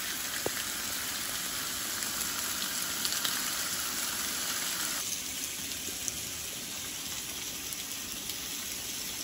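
Chicken breasts sizzling on the griddle of a Coleman two-burner propane camp stove, a steady hiss. About five seconds in the hiss turns softer and duller.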